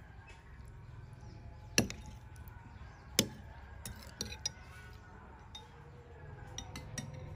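Metal spoon clinking against a clear glass bowl while cutting and stirring pickled eggs in chili sauce: two sharp clinks about a second and a half apart, then several lighter taps.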